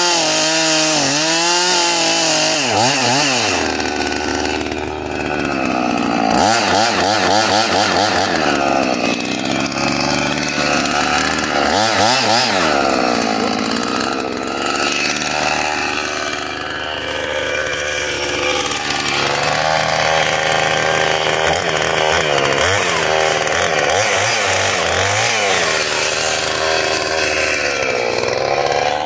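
Husqvarna two-stroke gas chainsaw cutting into an oak log, its engine pitch rising and falling over and over as the chain bites into the wood and is eased back.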